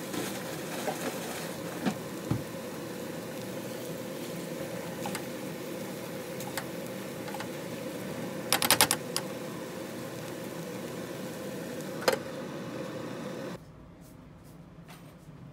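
Kimchi fried rice sizzling in a hot pan under a steady hum, with a silicone spatula scraping and knocking against the pan; a quick run of taps comes about halfway through. Near the end the sizzle stops and only quiet room sound remains.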